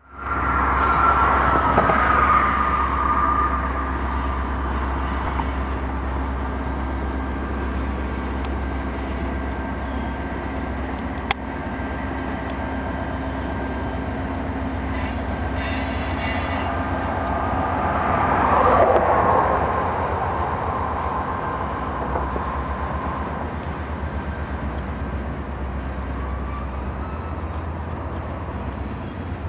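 Diesel-hauled freight train rolling past: a steady low rumble of locomotive engines and steel wheels on rail. It swells louder twice, near the start and about two-thirds through, each time with a whining tone that slides down in pitch.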